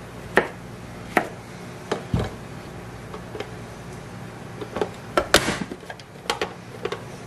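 Chef's knife chopping zucchini on a cutting board, four sharp knocks in the first couple of seconds. Then a quicker cluster of plastic clacks and knocks from a push-down grid food chopper as the pieces are loaded and pressed, the loudest about five seconds in.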